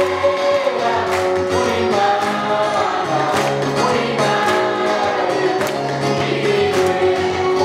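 Gospel song: voices singing in harmony over a steady percussion beat.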